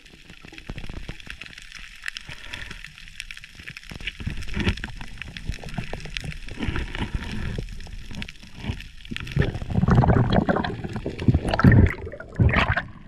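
Underwater sound heard at the diver's camera: scattered small clicks and crackles, then louder sloshing and gurgling water for the last few seconds as the diver rises to the surface.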